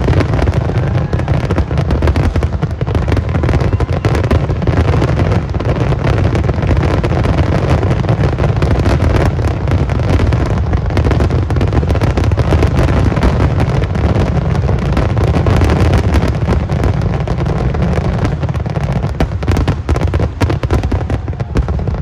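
Fireworks going off in a dense, continuous barrage of overlapping bangs and crackles.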